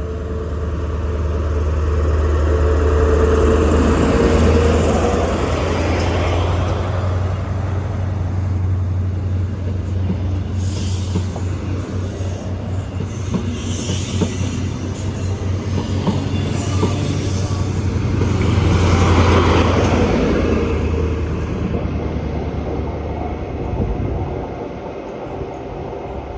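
HST (InterCity 125) diesel train passing at close range. The power cars' diesel engines give a steady low drone that swells twice, about a quarter of the way in and again about three quarters of the way through, as the power cars at each end go by. Between them the wheels clatter rhythmically over the rail joints.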